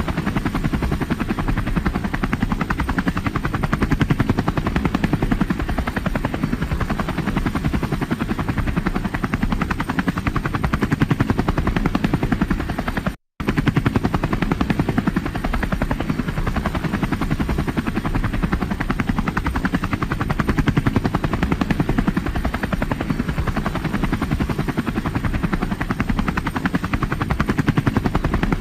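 Helicopter flying, its rotor blades chopping steadily. The sound cuts out completely for a split second about halfway through, then resumes.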